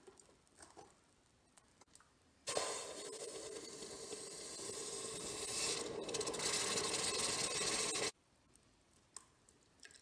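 Hot, freshly cast copper ingot quenched in a bucket of water, held in tongs: a loud sizzling hiss that starts suddenly a couple of seconds in, swells slightly and cuts off abruptly near the end. Before it, faint scrapes of the tongs digging the ingot out of casting sand.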